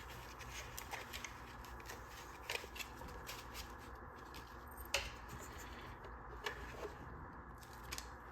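Packing foam being pulled out from around a new 3D printer by hand: soft rustling and rubbing with scattered small clicks and knocks, the sharpest about five seconds in.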